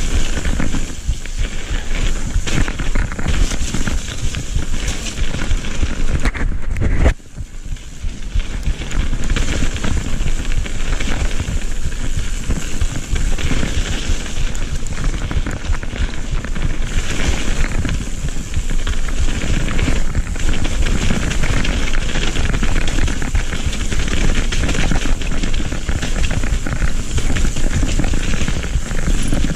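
Mountain bike riding fast down a dirt trail: a steady crackling rattle of tyres over dirt and grit and of the bike's frame and parts. There is a sudden thump about seven seconds in, after which it briefly goes quieter.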